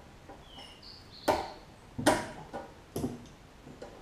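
Pliers clicking against the metal throttle linkage of a Briggs & Stratton Quantum mower engine: three sharp clicks about a second apart, each with a short ring.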